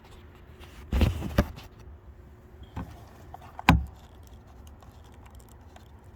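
Handling noise: a few knocks and small rattles, with a louder knock about a second in and a sharp click just before four seconds, as the camera is set down and the plastic brake-light connector clips are worked.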